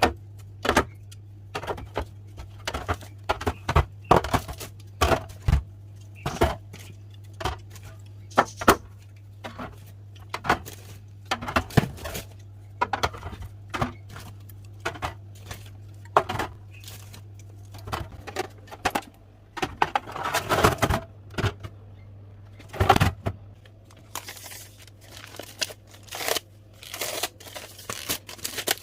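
Drink bottles and cans being handled and set into a fridge: irregular clinks, knocks and rustles a few times a second over a steady low hum. Denser handling noise comes around twenty and twenty-three seconds in.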